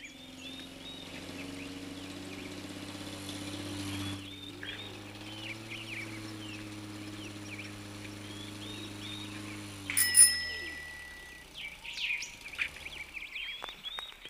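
Birds chirping and tweeting over a steady low hum that fades out after about ten seconds. About ten seconds in there is a single bright, bell-like ding that rings on briefly.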